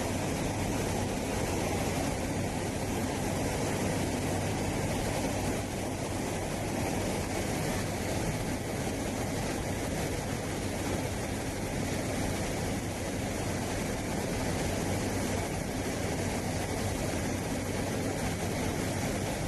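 Steady aircraft engine noise with a low, even hum that neither rises nor falls.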